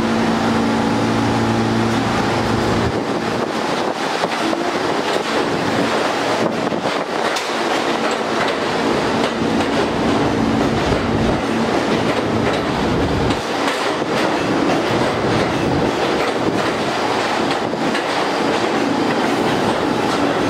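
R46 subway train pulling out of an elevated station and rolling past, with a steady hum that stops about three seconds in. After that the cars keep passing with a steady rumble and a clickety-clack over the rail joints.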